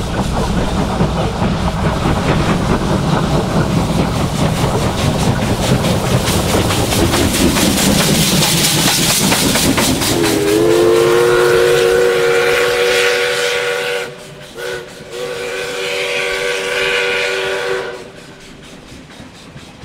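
DT668 steam locomotive running, a loud noise with a fast even beat. About halfway through, its steam whistle sounds in two long blasts: the first slides briefly up in pitch as it starts, and the second follows a short break and cuts off near the end.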